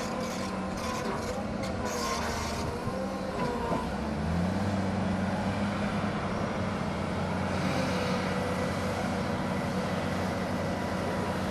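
Heavy diesel engine running steadily, with a few brief clattering noises in the first couple of seconds. About four seconds in it revs up and holds at the higher speed.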